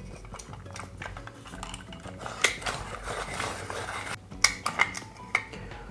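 Hand-cranked rotary pencil sharpener (a Minicle) shaving a Derwent graphite pencil as the crank turns: a continuous scraping of the blade cutting wood, with scattered sharp clicks from the mechanism. The cut is smooth and unbroken, which the artist takes as the sign of very good wood quality.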